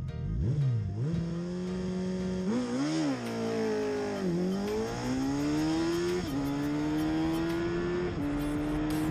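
Suzuki Hayabusa's inline-four engine launching down a drag strip. It is held at steady revs, then pulls hard with the pitch climbing through the gears, dropping sharply at two quick upshifts near the end.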